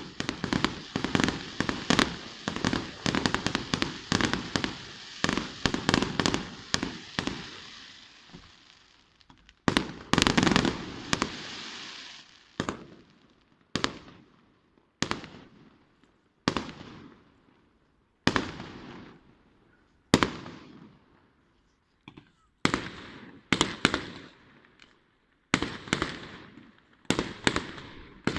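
Aerial fireworks display: a dense run of overlapping bangs and crackling for the first third, then a cluster of bangs around the middle, then single loud shell bursts every second or two, each dying away in a rumbling echo.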